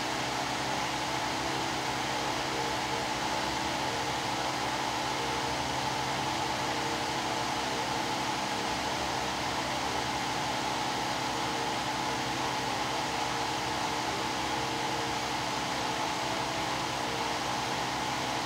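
Steady whir of an electric fan or blower, with a constant hum of a few fixed tones, unchanging throughout.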